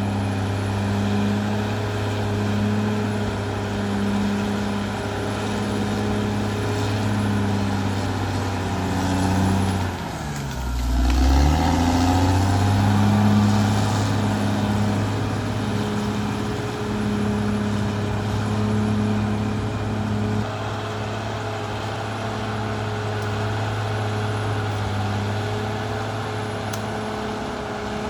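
Caterpillar D6R XL bulldozer's diesel engine running steadily. About ten seconds in, its pitch dips sharply as the engine is pulled down under load, then it picks back up and runs louder for a few seconds before settling.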